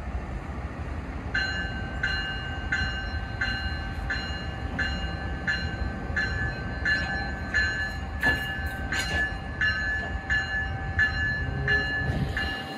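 Locomotive bell ringing steadily, about one and a half strikes a second, starting about a second and a half in, over a low steady rumble from the train.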